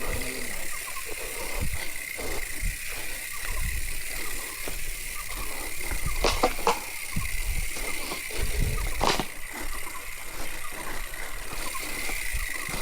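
Giant Fathom hardtail mountain bike rattling and knocking as it rides over rough trail, picked up by a chest-mounted action camera. There are a few sharp clicks about halfway through and again a few seconds later, over a steady high-pitched hum.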